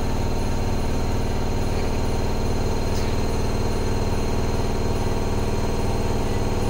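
Front-loading washing machine running: a loud, steady pitched hum with a fast, even low pulsing.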